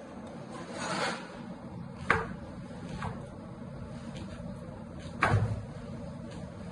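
Kitchen knife chopping a vegetable on a plastic cutting board: a few sharp, separate knocks at a slow, uneven pace, with a heavier thud a little after five seconds in.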